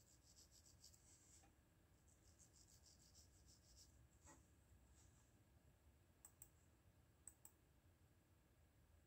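Faint pencil strokes scratching on paper in quick runs through the first four seconds, then a few light clicks, two pairs of them, after about six seconds.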